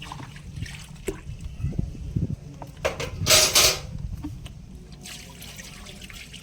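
Water splashing and trickling during a water wash of a Daikin split AC, with one loud rush of water a little past three seconds in.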